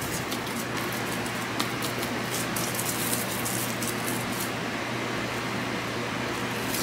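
Cling film rustling and crinkling softly under hands pressing it down over a tart crust in a metal tart tin, with faint crackles scattered through. A steady hiss runs underneath.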